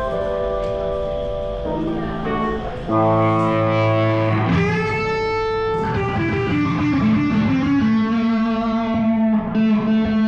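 Guitar-led rock music, electric guitar playing held chords and notes that change every second or two, growing louder about three seconds in.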